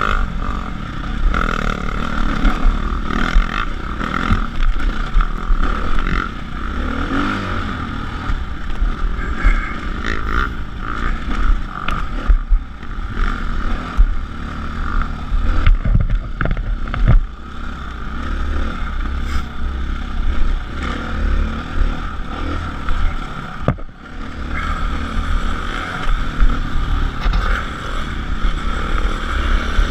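Dirt bike engine running hard under load, heard from on the bike as it is ridden over a rough dirt trail, the throttle rising and easing off briefly a few times. Sharp knocks from the bike hitting bumps come through here and there.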